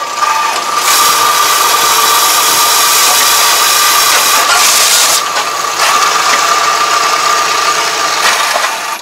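Tractor engine running steadily with a constant high whine while a bale wrapper tips a plastic-wrapped round straw bale off onto the ground. The sound shifts about halfway through as the bale rolls off and dips just before the end.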